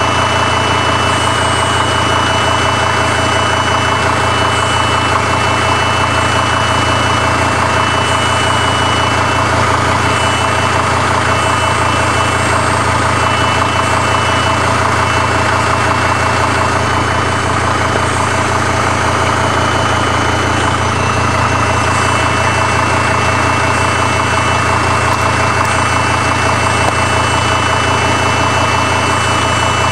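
Mercedes-Benz W210 E290's OM602 five-cylinder diesel idling steadily with its usual diesel clatter, in which the owner suspects a knock that he cannot pin down.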